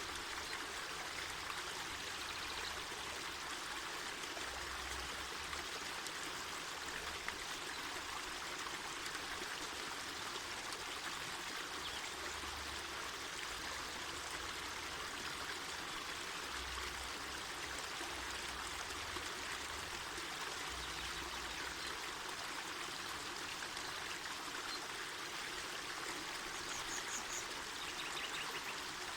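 Mountain forest river flowing steadily: an even, unbroken rush of water.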